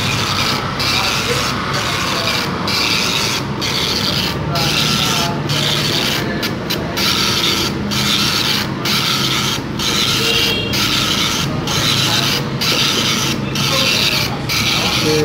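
Epson 9-pin dot matrix printer printing, its print head rasping steadily across each line, with a short pause about once a second as the paper feeds to the next line.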